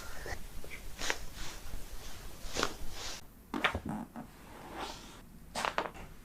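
A few short sharp clicks and knocks, spread out over several seconds, with rustling of body and clothing during a chiropractic adjustment that follows a deep breath.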